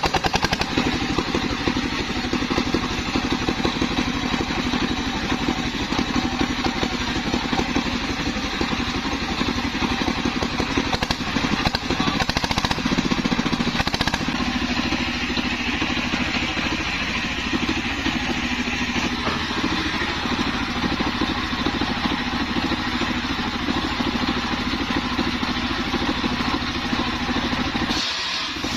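Single-cylinder diesel engine driving a portable circular-saw mill, freshly started and running steadily.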